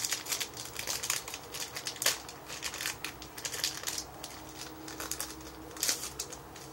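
Foil wrapper of a Yu-Gi-Oh! Absolute Powerforce booster pack being torn open and crinkled by hand: a run of sharp crackles, loudest at the start, about two seconds in and again near the end.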